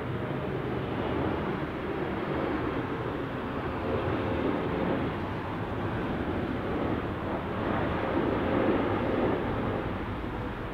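Jet engine noise from an arriving Boeing 777-300ER, its GE90 turbofans making a steady rumble with a faint whine that swells a little near the end.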